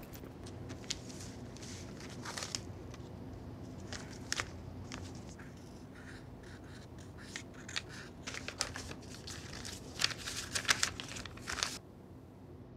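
Papers being handled: irregular rustling, crinkling and small scrapes, with a pen scratching on paper, over a faint steady room hum. The rustling grows busiest near the end.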